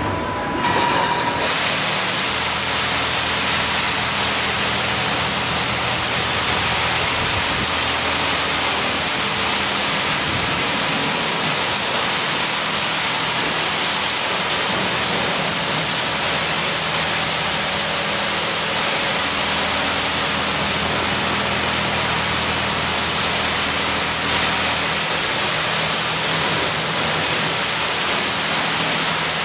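Touchless automatic car wash machine spraying high-pressure water over a car: a steady, loud hiss of spray that starts about a second in, with a low machine hum underneath.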